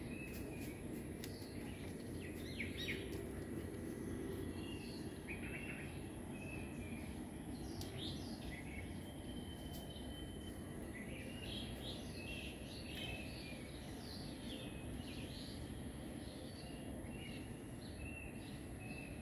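Outdoor background ambience: a steady low noise with birds chirping now and then.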